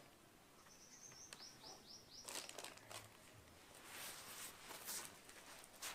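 Faint bird call against quiet outdoor ambience: a thin high whistle, then four quick falling chirps.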